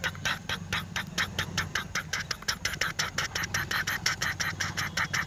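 Toy tractor running, a rapid, even ticking of about seven a second over a steady low hum.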